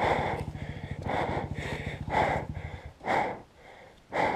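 A rider panting hard, loud gasping breaths about once a second, out of breath. Under the breaths a single-cylinder dirt bike engine idles steadily until it stops about three seconds in.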